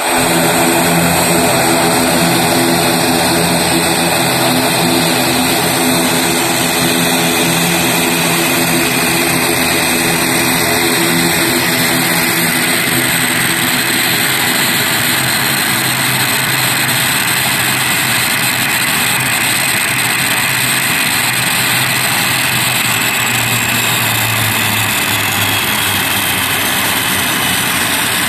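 The turboprop engines of an ATR 72-600 run on the ground during an ATPCS test, giving a loud, steady propeller drone with a high turbine whine. The low drone thins out about halfway through, and a faint high whine falls slowly near the end.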